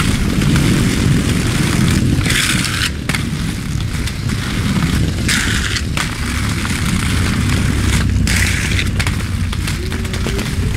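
Inline skate wheels rolling over brick paving, a loud steady rumble, with a hiss that comes in three times for under a second each, about every three seconds.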